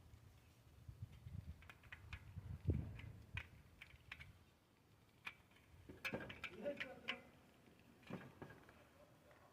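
Faint, irregular light clicks and knocks, like small handling noises.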